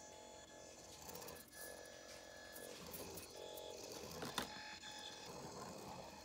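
Faint whine of a 1/64-scale micro RC car's N10 motor and gearing as it drives, its pitch shifting every second or two with the throttle. A sharp click about four and a half seconds in.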